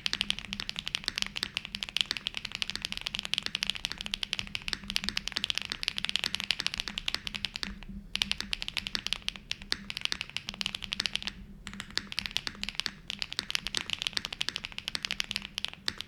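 QK65V2 mechanical keyboard in a top-mount build being typed on quickly: a dense, continuous run of key clacks, with two short pauses, one about halfway through and one about two-thirds of the way through.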